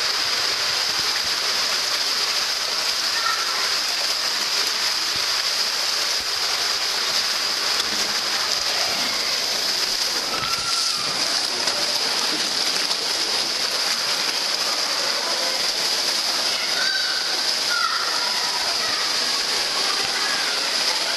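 Water rushing and splashing steadily down a water slide, heard close up as a rider slides through it.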